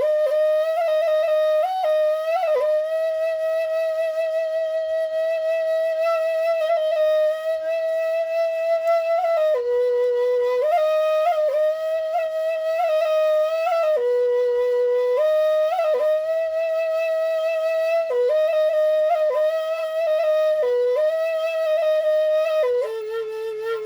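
Solo Balinese bamboo suling flute playing a slow melody, mostly holding one note with quick ornamental flicks and brief dips to a lower note, sounding without a break for breath.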